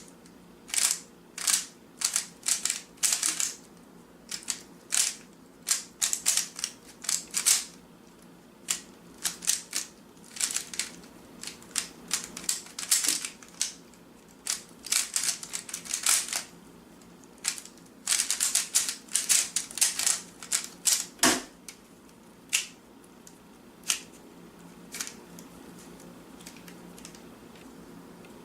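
A Rubik's Cube being handled: an irregular run of short, sharp clicks and scratchy snaps, coming in quick clusters and thinning out toward the end.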